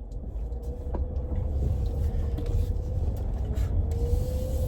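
Car engine and road rumble heard from inside the cabin as the car pulls away and gets under way, with a thin steady whine that rises slightly near the end and a single click about a second in.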